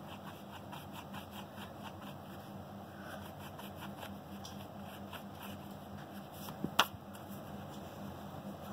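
Pencil scratching on paper in quick short strokes, with one sharp click about two thirds of the way through.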